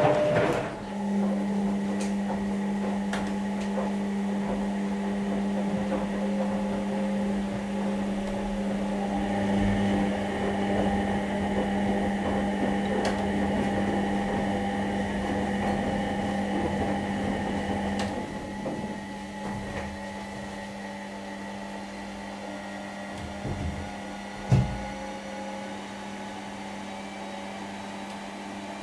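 Bauknecht WA 9350 washing machine running, its motor giving a steady hum while the drum turns. The motor winds down about 18 seconds in, leaving a quieter background, and a single sharp click comes near the end.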